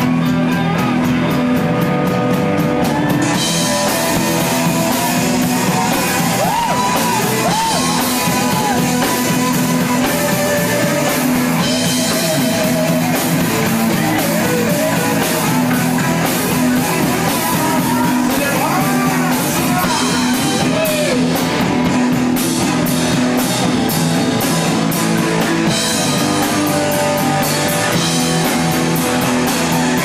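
Live rock band playing with electric guitars, bass guitar and drum kit; the cymbals come in about three seconds in.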